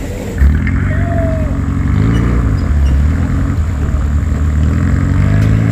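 Off-road 4x4's engine running under load, its pitch rising as it revs up about two seconds in, with a sudden low thump about half a second in.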